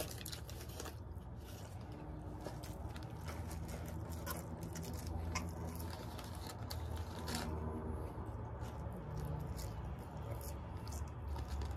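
Close-up chewing and mouth sounds of a person eating a bacon cheeseburger, with small clicks and crackles from the paper burger wrapper being handled, over a steady low hum.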